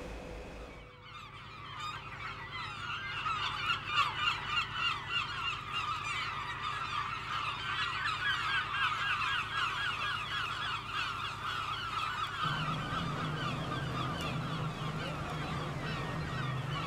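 A flock of gulls calling constantly, many short cries overlapping, over a low steady hum that gets louder about twelve seconds in.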